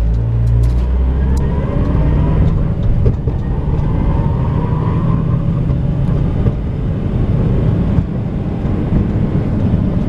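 Honda Element's four-cylinder engine and 4x4 drivetrain pulling away from a stop, heard inside the cabin, with a heavy low rumble in the first second and a half and a faint rising whine as it gathers speed. The take-off is where the vehicle makes a cracking, scraping noise from underneath, which the mechanic suspects lies in the rear driveshaft or 4x4 unit rather than the transmission.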